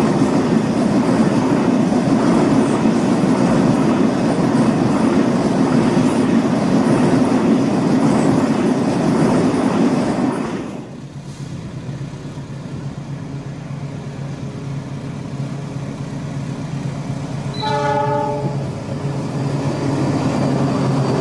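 Container freight wagons rolling past close by with steady wheel clatter, which stops abruptly about ten seconds in. A diesel locomotive's engine then drones low as it approaches, sounds one short horn blast about eighteen seconds in, and the train noise builds again toward the end.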